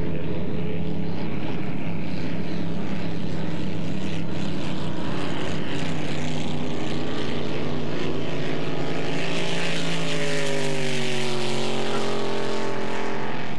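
Inboard engine of a flat-bottom KRR race boat running hard on the water, its pitch climbing in the second half as it revs up, with a hiss that grows louder near the end.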